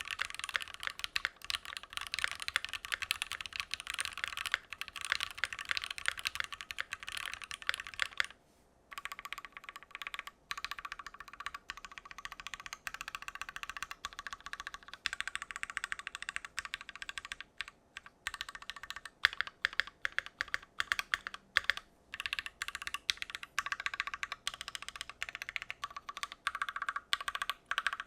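Typing on a Keychron Q1 mechanical keyboard with a gasket-mounted aluminium plate: a fast, steady run of keystroke clicks, with a short pause about eight seconds in.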